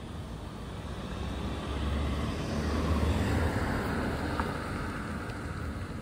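A vehicle passing by: rumble and road noise swell over about two seconds, peak about three seconds in, then fade.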